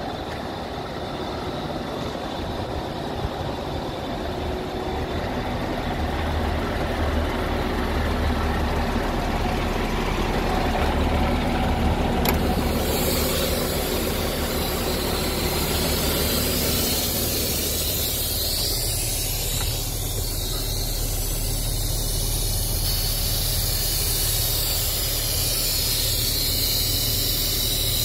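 Volvo F12 400 truck's diesel engine idling steadily. About halfway through, a steady hiss joins it.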